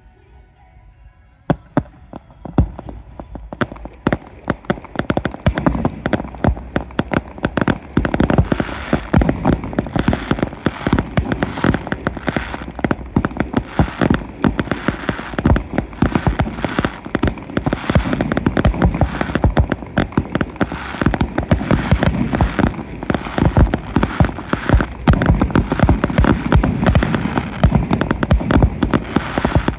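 Fireworks display: aerial shells bursting in a rapid, continuous barrage of bangs and crackles that starts about a second and a half in and grows denser.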